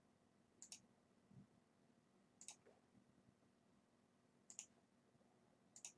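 Faint computer mouse clicks, four in all about every second and a half to two seconds, each a quick double tick of the button pressing and releasing, over a faint low steady hum.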